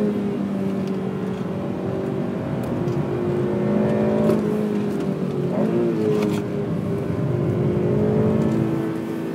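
Honda Civic Type R FN2's four-cylinder VTEC engine under load on a wet track, its note holding, dropping and climbing again several times as the car is driven hard through corners, with a quick change in pitch about halfway through.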